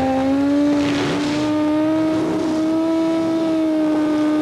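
Drag-racing engine held at high, steady revs, its pitch creeping slightly upward, with tyre noise around a second in.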